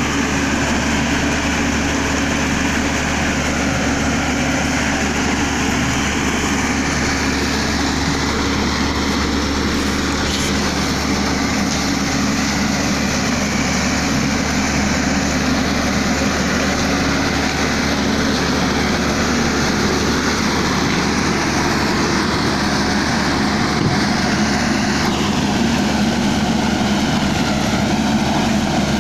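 Excavator's diesel engine running steadily, a constant low hum with no break.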